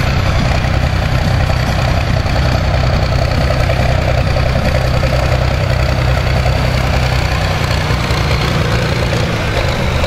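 Large diesel tractor engines running steadily at an even speed, with no revving or pulls, a deep loud drone.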